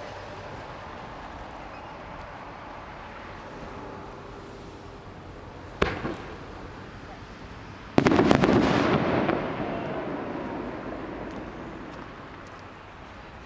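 Fireworks going off: a single sharp bang about six seconds in, then a louder burst about two seconds later, several quick cracks with a rumble that fades away over a couple of seconds.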